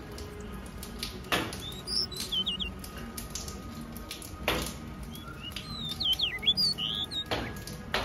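Gouldian finches calling with short, high-pitched chirps and gliding whistles, in a quick run about two seconds in and a longer run around six seconds in, over faint ticking of seed being pecked. Three louder knocks fall about three seconds apart.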